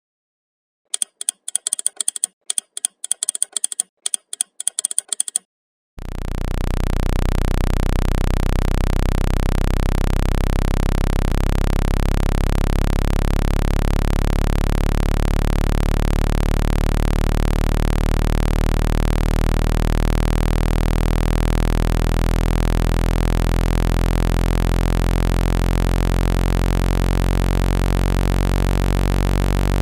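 A quick run of short clicks, then from about six seconds a steady, loud, low electronic tone with many overtones. The tone is a synthesized speaker-cleaning sound, played to shake water out of a phone's speaker.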